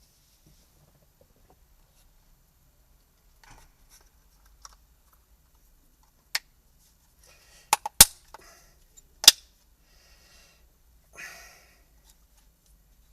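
Sharp clicks of a car accelerator pedal assembly being handled and put back together: four loud clicks around the middle, with softer rustling and tapping of the parts between them.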